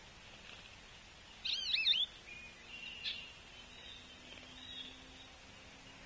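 A songbird's short call of fast looping whistled notes about one and a half seconds in, then a sharp chip and fainter thin whistles. A faint steady low hum sits underneath.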